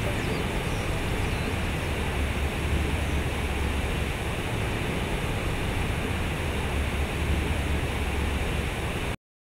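Water from a large concrete-block fountain pouring and splashing steadily into its pool, a constant rushing with a strong low rumble underneath; it cuts off suddenly near the end.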